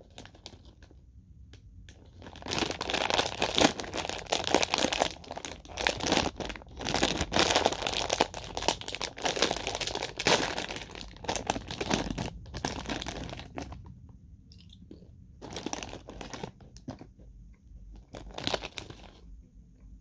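Plastic snack bag crinkling and tearing as it is handled and pulled open, a dense run of crackling from about two seconds in. Toward the end it breaks into shorter, separate crinkles.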